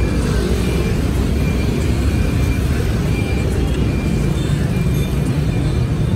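Steady rumble of heavy street traffic, mostly motorbike and car engines running past, with music underneath.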